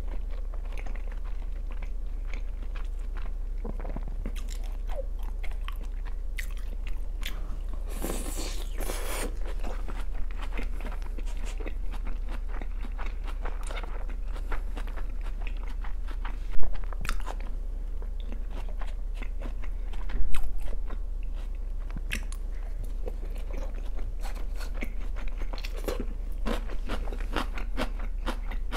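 Close-miked chewing of raw salmon with sliced raw onion: steady wet mouth clicks and soft crunches over a low steady hum, with two louder sharp sounds past the middle.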